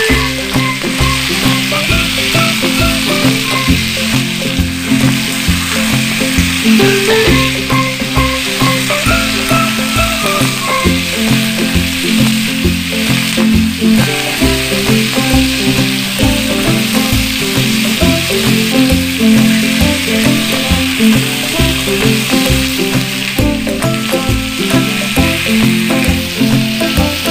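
Chicken wings sizzling as they fry in a nonstick frying pan, under background music with a steady beat.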